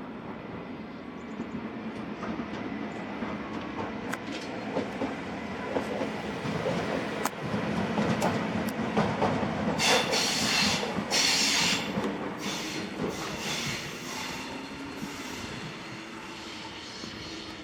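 Train wheels rolling through yard switches, clacking over the joints, with a high-pitched squeal from the wheel flanges on the curved turnout starting about ten seconds in and fading over the next few seconds.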